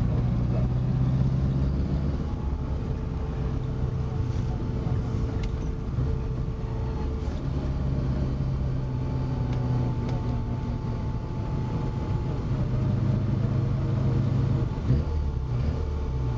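1966 Mini Cooper S's A-series four-cylinder engine running under load on a slow uphill drive, heard from inside the cabin. The engine note is steady but steps in pitch a few times as the throttle changes, with a single click about fifteen seconds in.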